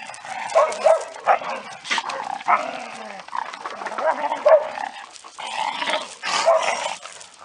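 Several dogs barking and yipping in short, irregular bursts, with no steady rhythm.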